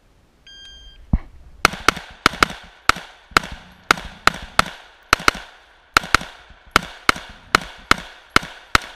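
A shot timer beeps once, then a scoped semi-automatic rifle fires about twenty rapid shots, many of them in quick pairs, until near the end.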